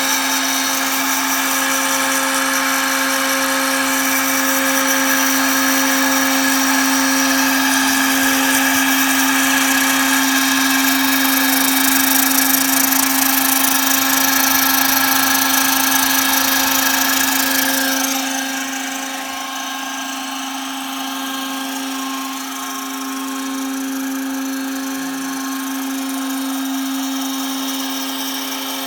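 Router spindle with a 3 mm bit running at a steady pitch while milling plexiglass, a high cutting hiss over a steady hum. About 18 seconds in, the cutting noise falls away and it runs quieter.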